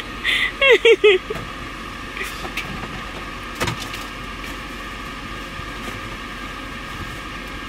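Things clicking and knocking as a small under-counter camper-van fridge is rummaged through, with one clear knock a bit over three seconds in, over a steady mechanical hum. A brief voice sounds at the start.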